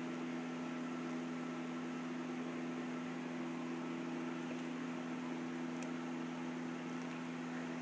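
A steady low electrical or machine hum with a hiss over it, unchanging throughout.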